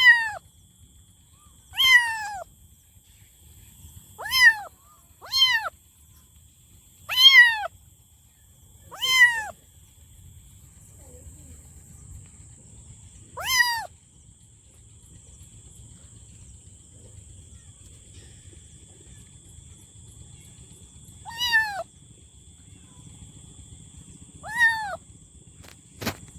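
A kitten meowing: about ten short, high calls that each fall in pitch, spaced a second or more apart, with a quiet stretch of several seconds in the middle.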